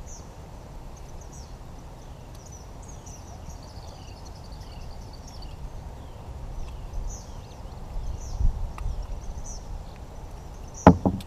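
Small birds chirping over and over in the background above a low steady rumble. A sharp knock stands out near the end.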